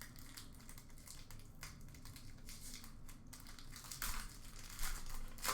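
Trading card pack wrapper crinkling and cards being handled, faint and irregular, with louder rustles about four seconds in and again near the end.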